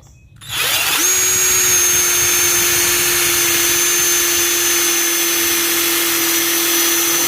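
Bauer 20-volt cordless impact driver squeezed on about half a second in, spinning up quickly and then running at a steady free speed with a constant whine. There is no hammering: the impact mechanism is not engaged, so the tool is running unloaded.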